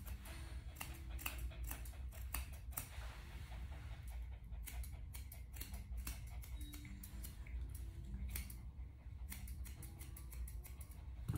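Grooming scissors snipping a dog's coat: many quick, sharp cuts at irregular spacing, often in short runs.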